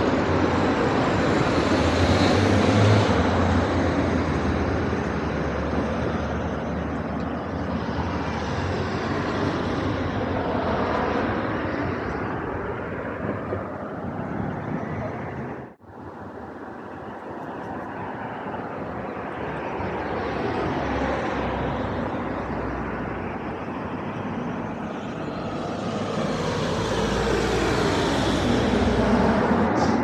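Outdoor traffic noise from passing vehicles, a continuous rush that swells and fades as they go by, cutting out abruptly for a moment about halfway through.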